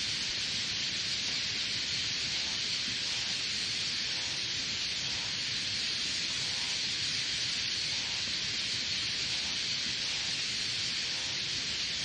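Steady, even hiss with no distinct calls or events, strongest in the upper-middle range.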